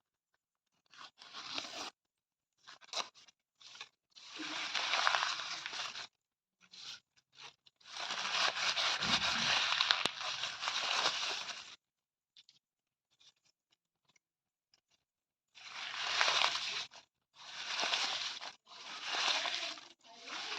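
Paper being torn by hand in a series of rips of different lengths: a few short tears, two long drawn-out ones, then four quick tears in a row near the end. The gaps between them are silent.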